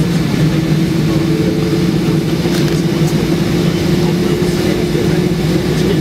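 Cabin noise inside a Boeing 777-200 airliner: its jet engines running at low power with a steady low drone and a few held tones, over an even rush of air, while the aircraft taxis.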